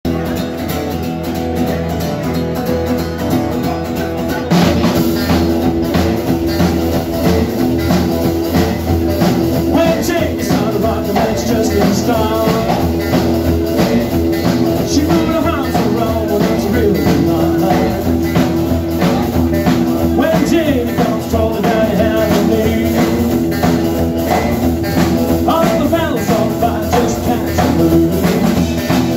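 Small rock and roll band playing live: acoustic and electric guitars, upright double bass and drum kit, with a man singing. The band gets louder about four and a half seconds in.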